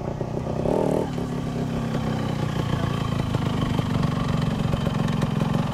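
Motorcycle engine running close by at a steady idle, a little louder in the second half.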